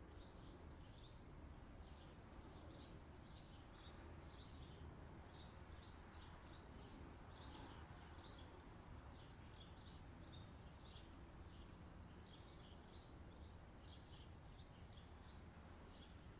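Faint outdoor ambience of birds chirping: short, high chirps come a few times a second, over a steady low background rumble.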